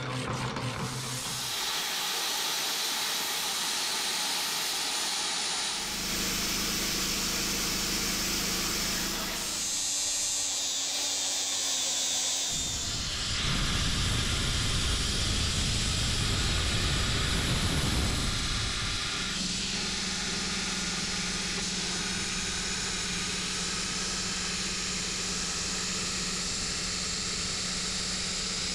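Plasma cutter cutting steel plate: a steady hiss from the torch's arc and air stream over a steady hum, in several separate passes that start and stop abruptly. It opens with a horizontal band saw cutting steel bar for about the first second and a half.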